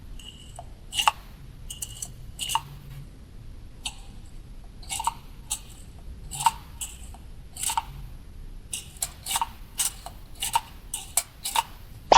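Small plastic toy pieces clicking and tapping as they are handled and set down: an irregular series of sharp clicks, about two a second.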